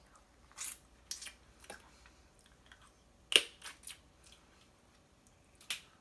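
Wet chewing and mouth smacking while eating snow crab meat: a scatter of short, soft clicks, the sharpest a little past halfway.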